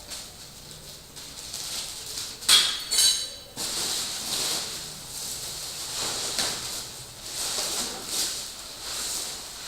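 Plastic packaging crinkling and rustling as an item is unwrapped by hand, with two sharper, louder crackles about two and a half and three seconds in.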